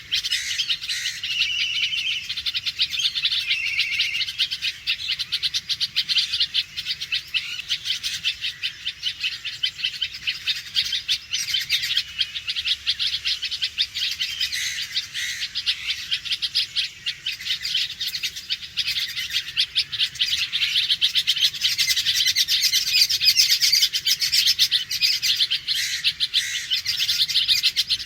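Red-vented bulbul giving its alarm call: sharp, chirping notes repeated rapidly and without a break, a warning of danger.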